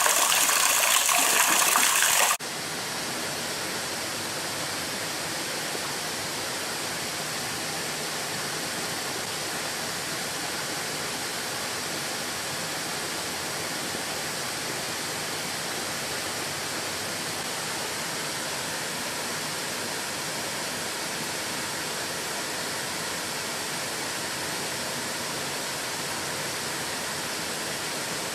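Rushing water of a creek waterfall: a louder, hissier rush cuts off abruptly about two seconds in, giving way to a quieter, steady rush of falling water.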